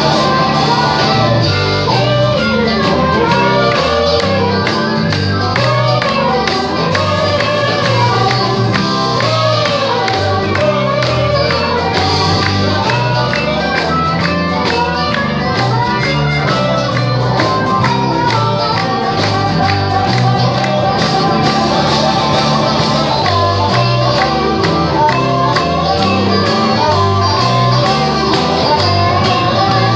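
Live band playing a song: electric guitar and drums, with a harmonica played into a cupped microphone and singing. Sliding, bending pitched lines run through the first ten seconds.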